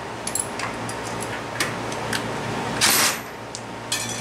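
Light metal clicks and taps of hand tools working on a moped's front wheel hub as it is taken apart, with a short harsh burst of noise about three seconds in.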